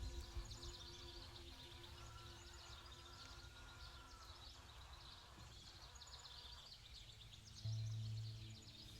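Small birds chirping and singing throughout, over soft, steady background music of held low tones; a louder low tone swells in near the end.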